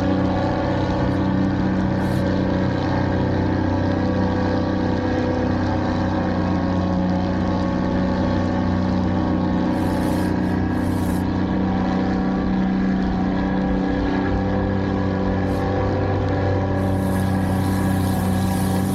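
Large engine of snow-removal machinery running at a steady speed: a deep, even drone that holds one pitch.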